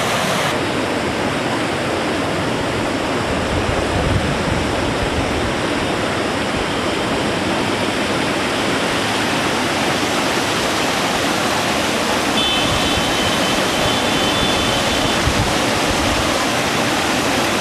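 The flooded Arpa River rushing in spate: a loud, steady noise of fast, turbulent muddy water.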